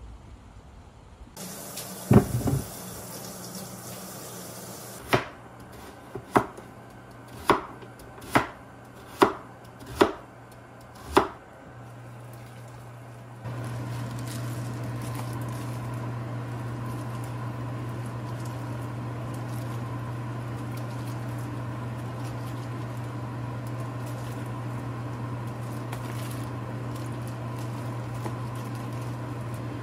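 A kitchen knife chopping on a cutting board, seven sharp strikes about a second apart. About halfway in, a steady kitchen-appliance hum starts and continues.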